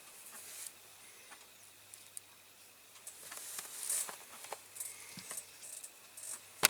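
Light handling noises of small model parts being worked by hand: scattered scratchy rustles and small clicks, busier in the second half, with a sharp click near the end.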